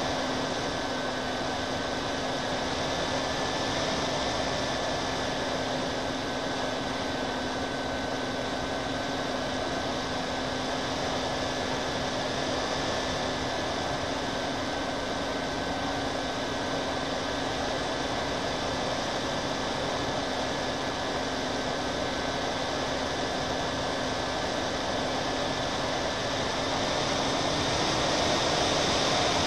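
Steady drone of a twin-motor radio-controlled plane's propellers, picked up by its onboard camera, with a hiss of rushing air. It grows a little louder near the end.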